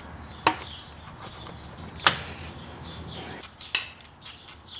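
Sharp clicks and light clatter of a radiator hose and its clamp being fitted in a car's engine bay: two single clicks, then a run of quick, irregular ticks in the last second or so.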